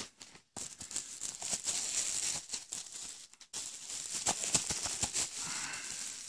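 Plastic bubble-wrap packaging crinkling and crackling as it is handled around a small cardboard box, with many small clicks and two short pauses, one just after the start and one about halfway through.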